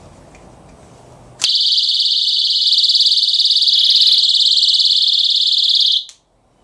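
eAlarm+ personal security alarm set off by its trip-wire line pulling the pin: a loud, shrill, high-pitched tone with a fast warble. It starts suddenly about one and a half seconds in and cuts off abruptly about six seconds in.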